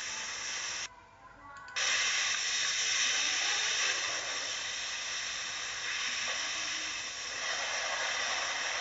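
Steady hissing of a pressurised spray washing down a hydraulic pump, breaking off for under a second about a second in.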